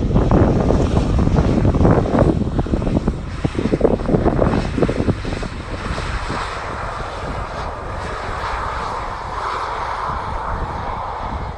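An airliner's engines running loud as it passes: a heavy, gusting rumble for about the first five seconds, then a steadier whine that drops slowly in pitch as it moves away.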